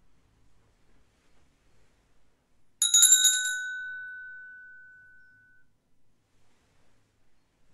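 A small hand bell is shaken in a quick flurry of about five strikes, then its clear tone rings on and fades away over about two seconds.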